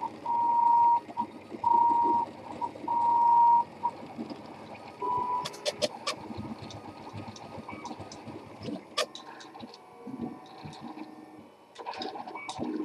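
RepRap 3D printer running a print: its stepper motors whine at one steady pitch in four bursts over the first few seconds, then a short fifth burst, followed by quieter, irregular buzzing broken by sharp clicks.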